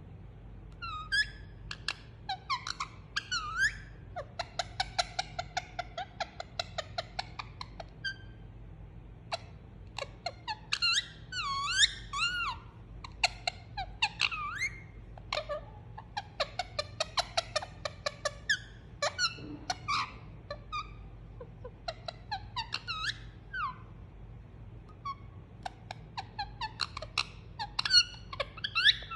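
Indian ringneck parakeet making soft squeaks, chirps and short whistled glides, with a fast chattering run of clicks in the first third. These are the contented sounds of a parrot being cuddled.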